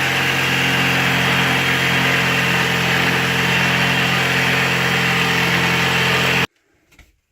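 Electric power saw running steadily, a constant hum and whine, cut to size the flooring for the toilet base; it cuts off abruptly near the end.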